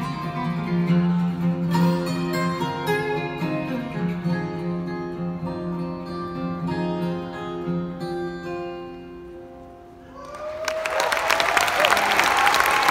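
Acoustic guitar duet playing the closing bars of a song, the last notes ringing and fading away about ten seconds in. Audience applause then breaks out and grows loud.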